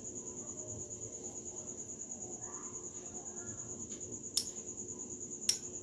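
A steady, high-pitched, rapidly pulsing insect trill, with two sharp metallic clicks near the end as small parts of a spinning reel are handled during disassembly.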